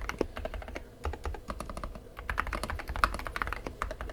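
Typing on a Royal Kludge L75 75% mechanical keyboard fitted with silent purple switches, which are made for quiet keystrokes. The keys are struck in quick runs that thin out for a moment about a second in, then pick up again.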